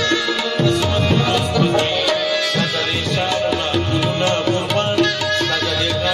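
Harmonium playing a melody over a steady run of tabla strokes: the instrumental accompaniment of a Pashto ghazal.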